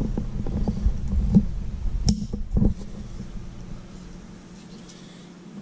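Low rumbling handling noise, then a sharp click about two seconds in and a softer second click just after: a folding lock-blade knife being opened, its blade snapping into the locked position.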